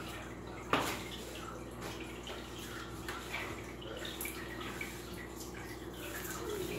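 Faint handling and movement noises of a person crawling on a tiled floor: scattered small rustles and taps, with one sharp knock about a second in, over a steady low hum.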